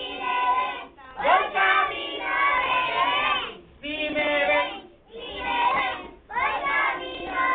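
A group of four-year-old preschool children singing a corito together in Spanish, in short phrases with brief breaks between them.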